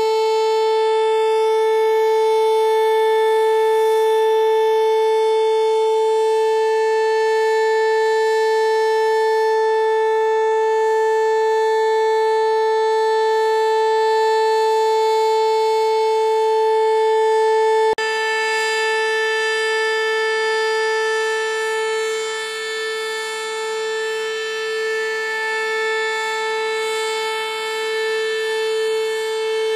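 A long, loud horn-like tone held at one steady pitch without a break. It becomes slightly quieter and wavers a little from a little past halfway.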